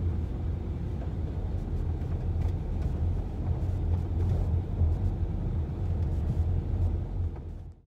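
Car driving slowly, heard from inside the cabin: a steady low engine and road hum with tyre noise. It fades out quickly near the end.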